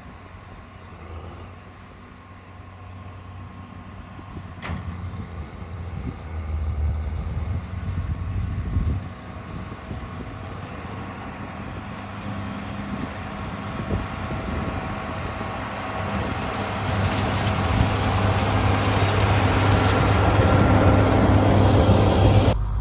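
Tractor engine running under load as it pulls a John Deere round baler baling alfalfa, steadily louder as it comes closer and passes close by near the end.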